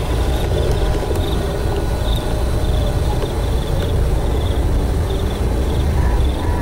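Steady low rumble with faint, irregular insect chirping high above it.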